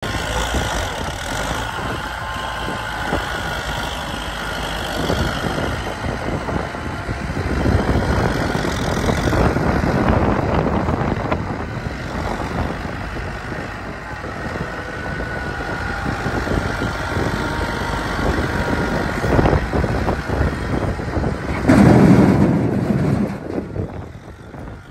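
Kubota M9540 tractor's diesel engine running and revving up and down under load as its front loader works a pile of sugar beets. Near the end there is a loud burst of noise as a bucketload of beets pours into the truck bed.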